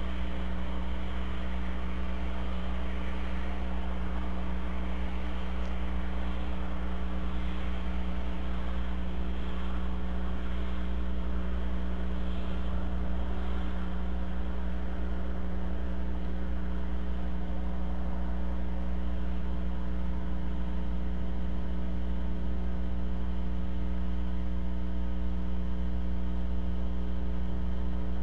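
Steady electrical mains hum and hiss on a nest camera's live-stream audio: a low drone with a stack of steady tones above it, unchanging throughout.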